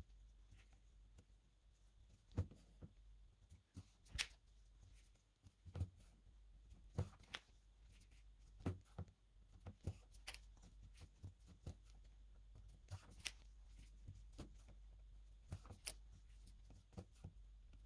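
Leather being hand-stitched: faint, irregular clicks and rustles, about one every second or so, as the needle passes through the punched holes and the thread is pulled tight.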